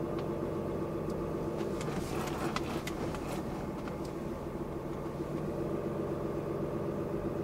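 Pickup truck driving slowly, heard from inside the cab: a steady engine and road hum, with a few light ticks about two to three and a half seconds in.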